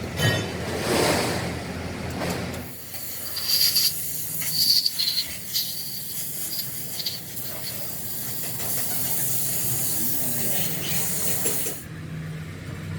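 A long steady hiss, starting about three seconds in and stopping shortly before the end, after a stretch of mixed workshop noise.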